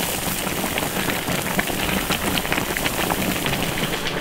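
Fish-head and bullfrog broth boiling hard in a wok, a steady dense bubbling with many small pops.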